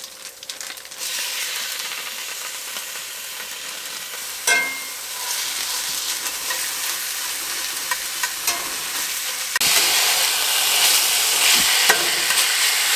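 Ground chicken sizzling as it fries in a pan while a utensil stirs and scrapes it, with a few sharp clicks. The sizzle gets louder about ten seconds in.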